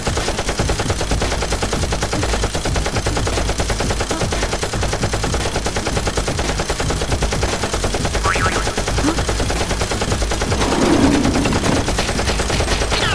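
Sustained rapid automatic gunfire sound effect, a dense stream of shots with no pause, standing in for the toy blasters' fire.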